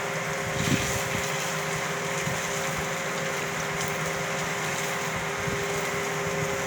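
A steady machine hum with two constant tones over an even hiss, with a brief knock about a second in.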